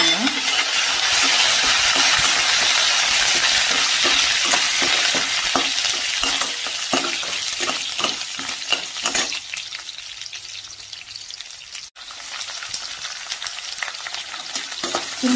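Hot oil sizzling loudly in a steel kadai as freshly added curry leaves fry with garlic, dried red chillies and dals, with a perforated steel spatula scraping and knocking against the pan while stirring. The sizzle is loudest at first and dies down over several seconds, the stirring knocks come thick in the middle, and after a short break near the end the frying picks up again as sliced shallots go in.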